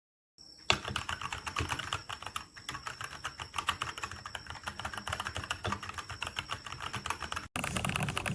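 Fast typing on a Royal Kludge RK96 mechanical keyboard: a dense, continuous run of key clicks starting about half a second in, broken by a momentary gap near the end.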